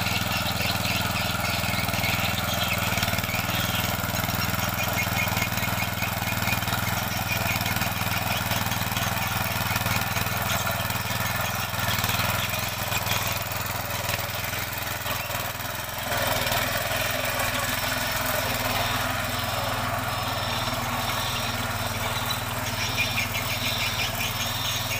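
Firman FTL 620 mini tiller's engine running steadily under load while its tines dig through soil, dipping briefly about two-thirds of the way through before picking up again.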